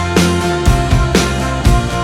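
Background music with guitar and a steady drum beat, about two beats a second.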